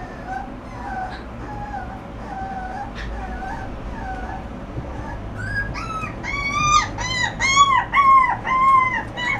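Shiba Inu puppy whimpering in a series of short whines, about two a second. About six seconds in they turn louder and higher-pitched.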